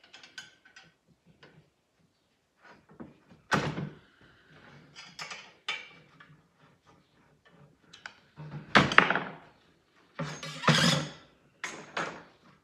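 Aluminium profile rails of a Festool MFS router template being slid, clamped and knocked against each other on the workbench as the template is set to size: scattered clacks and short scraping clatters. The loudest clusters come a bit past the middle and again near the end.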